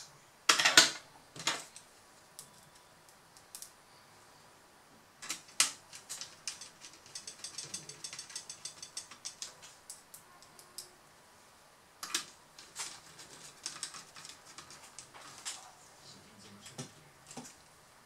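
Screwdriver and small screws clicking and tapping against a laptop's chassis and parts during reassembly: a few sharper knocks near the start, then scattered small clicks, with a quick run of rapid clicks in the middle.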